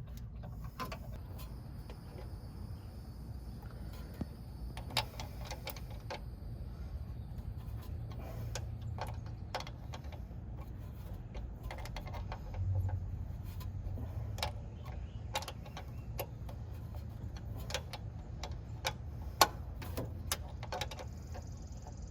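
Irregular metallic clicks and taps of hand tools and bolts as a starter motor's mounting nut and bolts are threaded on and turned, over a steady low rumble.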